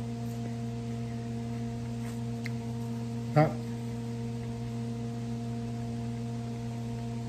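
A steady low electrical hum with several even tones, unchanging throughout. About three and a half seconds in comes a brief 'mm' from a person's voice while eating, and there are a couple of faint clicks shortly before it.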